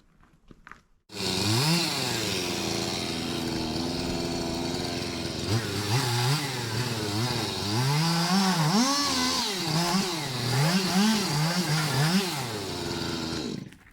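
Stihl chainsaw running, starting abruptly about a second in and revving up and down repeatedly, with its pitch rising and dropping as the throttle is worked. It cuts off just before the end.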